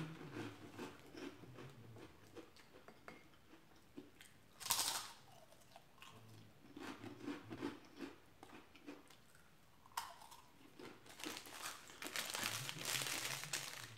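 Chewing and crunching of a crunchy snack picked from a bowl, with one loud bite about five seconds in. Near the end, a strip of plastic Pica Limón powder sachets crinkles as it is handled.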